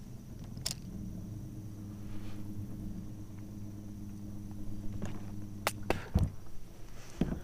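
Electric trolling motor humming steadily, cutting off about six seconds in. A few sharp clicks and two dull low knocks follow near the end.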